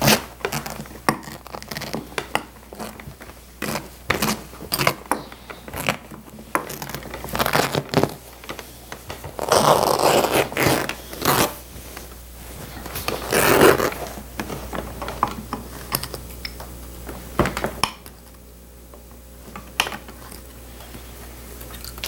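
Old upholstery being stripped off a wooden chair seat: metallic clicks and snaps as pliers pull tacks and staples, with longer ripping of cloth about ten and again about thirteen seconds in.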